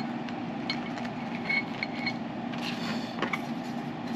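Metal parts being handled on a workbench: a few light clinks and faint rattles in the first couple of seconds, then soft handling noise, over a steady low hum.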